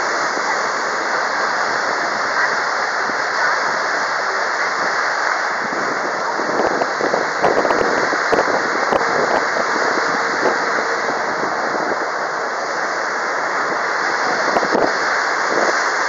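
Water rushing steadily along the hull of a moving tour boat.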